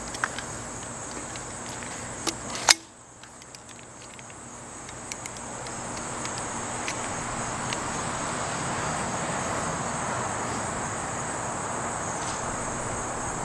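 Outdoor summer ambience: insects buzzing in a steady high tone over a soft rushing noise that swells after a few seconds, with one sharp click about three seconds in.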